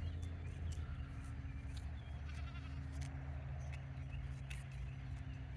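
A farm animal bleating faintly about two seconds in, over a steady low hum and a few faint clicks.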